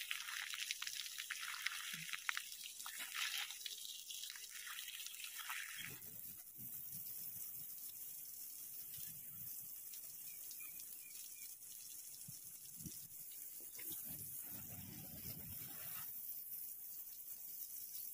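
Water spraying from a garden hose and splashing onto soil and mulch at the base of trees, a steady hiss with splashing; the hiss grows softer about six seconds in.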